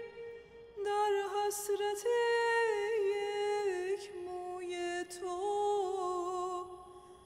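A woman's solo voice singing unaccompanied, in long held notes that slide slowly between pitches, broken by a short pause about half a second in.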